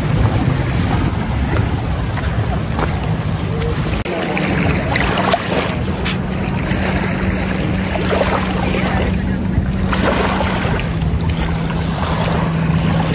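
Motorcycle running at a steady speed while riding, under heavy wind noise on the microphone; a steady engine note comes through from about four seconds in.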